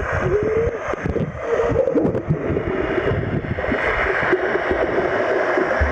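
Swimming pool water churning and gurgling steadily in the current of the pool's power jets, with splashing and bubbling as a dog dives through it.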